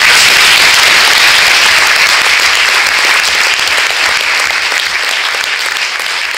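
Audience applauding: a dense, steady clapping that starts abruptly and slowly tapers off.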